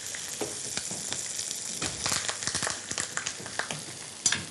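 Zander fillets frying slowly in olive oil in a pan: a steady sizzle with scattered crackles, busier about two seconds in.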